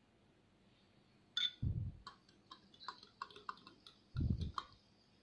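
Metal spoon clinking against a drinking glass while stirring salt into a little 7Up: a quick run of short ringing clinks, starting about a second and a half in, with two dull thumps among them.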